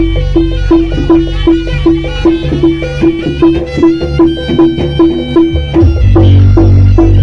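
Live jaranan (East Javanese kuda lumping) ensemble music: a reedy wind-instrument melody over a steady pitched percussion pulse of roughly two to three strokes a second, with deep drums underneath.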